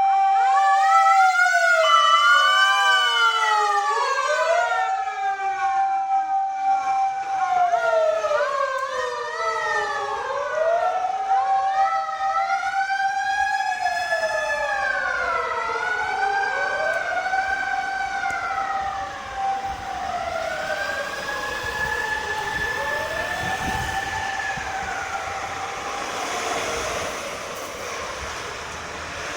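Sirens of Japanese fire vehicles, a fire command car's among them, wailing up and down in pitch. Several sirens sound at once, out of step with each other, and slowly grow fainter.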